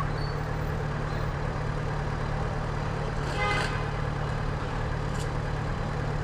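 2009 Yamaha FZ6R's 600cc inline-four engine idling steadily. About three and a half seconds in there is a brief higher-pitched sound.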